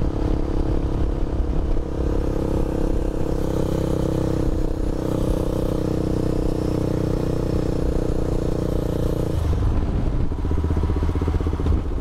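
KTM 390 Adventure's single-cylinder engine running under way, with its intake snorkel removed. The engine note drops about three quarters of the way through as the bike slows down.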